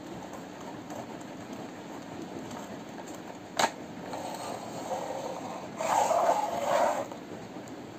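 Plastic toy fire truck being handled, its ladder boom moved by hand: a sharp click about three and a half seconds in, then a louder plastic rattling scrape lasting about three seconds, over a steady low rumble.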